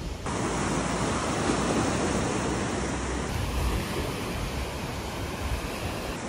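Surf breaking and washing up a rocky, pebbly shore in a steady rush, with wind on the microphone adding a low rumble.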